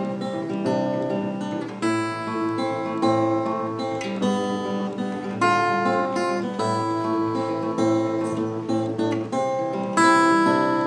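Jasmine cutaway acoustic guitar being played, a new chord struck about every second or so and left to ring into the next.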